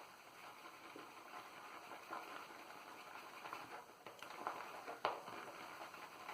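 Shaving brush working Stirling shaving soap into a lather: faint, wet, crackly squishing with a few small clicks as the brush moves through the thick, pasty soap.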